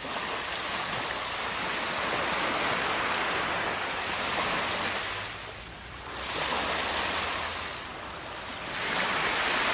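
Ocean surf washing in: a steady rush of water that swells and eases every few seconds.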